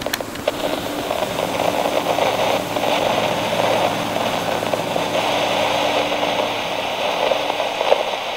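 John Deere 4430 tractor's six-cylinder diesel running steadily, driving a New Holland 358 grinder-mixer through the PTO as it grinds barley, with a dense rattling grind over the engine note.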